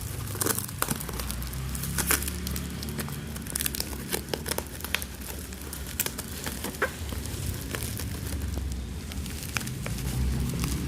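Packaging being handled and torn open by hand: irregular crinkling, crackling and tearing of cardboard and wrapping, over a low steady hum.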